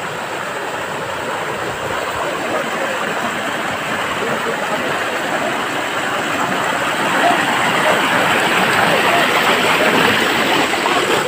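Shallow rocky stream rushing over stones, a steady even rush that grows a little louder in the second half.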